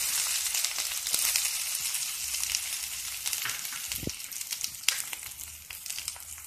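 Chopped onions sizzling in hot oil in a kadhai, just dropped in, with scattered crackles and pops; the sizzle slowly eases off.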